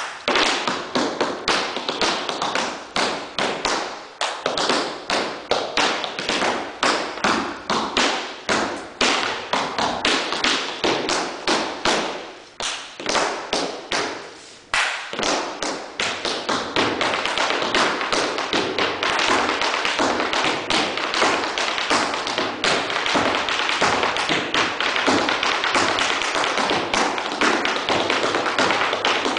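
Tap shoes striking a hardwood floor in improvised tap dancing: quick strings of sharp taps and heavier heel drops, broken by two short lulls a little before halfway, after which the taps run together in a dense, nearly unbroken fast stream.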